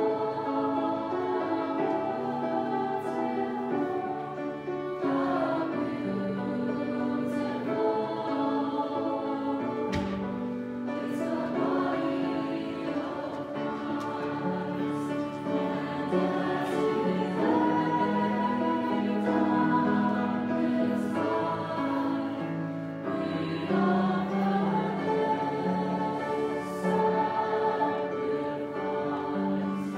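A school choir singing, with held notes that change pitch.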